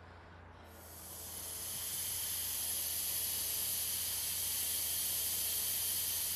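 Air hissing steadily out of a deflating pickup truck tyre. It starts under a second in and swells to full strength over about a second.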